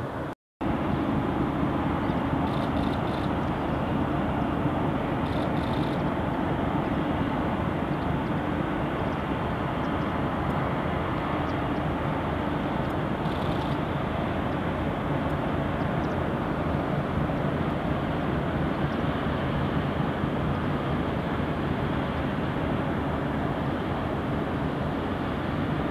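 Steady outdoor rumble and hiss of harbour ambience, with no single event standing out. The sound cuts out for a split second right at the start.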